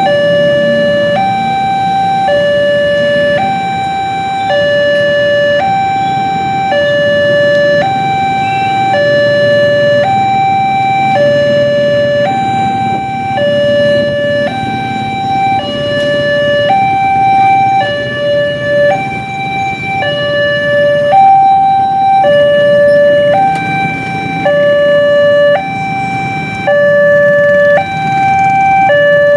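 Indonesian railway level-crossing warning alarm: an electronic two-tone signal alternating between a lower and a higher note, about one note a second, warning that a train is approaching. Road traffic with motorcycles runs underneath.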